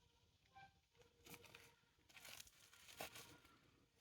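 Near silence, with a few faint rustles and crunches.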